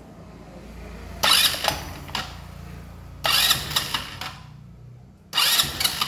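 Scooter engine cranked on its electric starter in three bursts of about a second each, spinning the front variator pulley and freshly fitted drive belt in the open CVT case.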